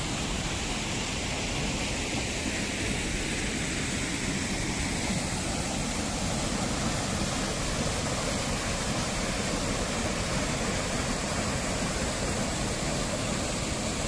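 Water rushing over a small rocky waterfall and down a stream, a steady, even rush.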